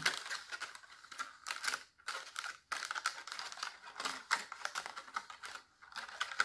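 Thin clear plastic cup, cut into strips, crinkling and clicking irregularly as fingers push fabric sock loops in and out of it.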